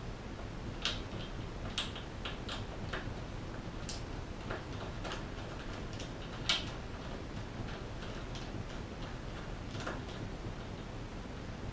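Scattered light clicks and taps from handling bicycle parts and tools at the handlebars during assembly, irregularly spaced, with a sharper click about six and a half seconds in.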